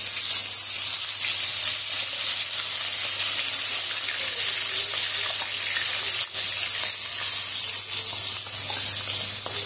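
Koi fish (climbing perch) frying in hot oil in a metal kadai: a loud, steady sizzle that starts suddenly as the fish go into the oil. There is a single sharp click about six seconds in.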